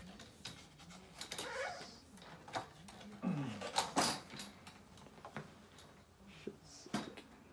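Light clicks and knocks of household objects being handled and set down, the loudest cluster about four seconds in, with a short falling voice-like sound just before it.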